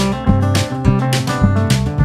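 Background music with a steady beat: a song with pitched instruments and a bass line over regular drum hits.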